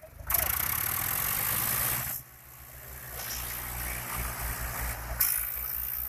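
Diesel tractor engine running close by, a steady low throb, with loud rushing noise over it for the first couple of seconds and again near the end.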